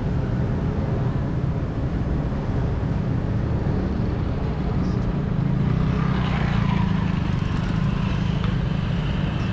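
Steady low rumble of outdoor city ambience, with a faint busier stretch of background activity from about six seconds in.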